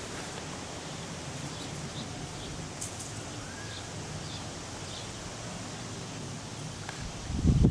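Steady outdoor background hiss with faint, short, high chirps repeating every half second or so. Near the end a sudden loud low rumble starts.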